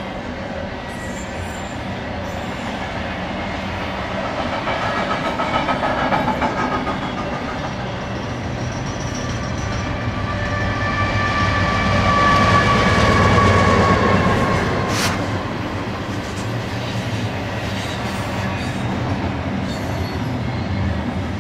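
Double-stack intermodal freight train rolling past, its wheels clattering over the rails. About halfway through, two mid-train diesel locomotives (distributed power units) go by: the engines' low drone swells, with a high whine falling in pitch as they pass, followed shortly by a single sharp click.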